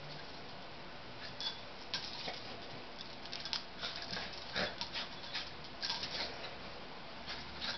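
A dog rolling and wriggling on a towel and bedding. It makes irregular rustles, scuffs and scratches of fabric, a few a second.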